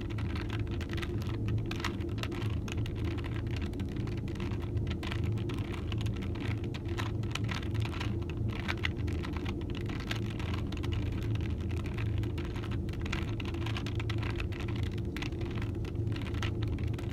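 Plastic Rubik's Cube layers being twisted over and over, a quick irregular run of small clicks and clacks, over a steady low hum.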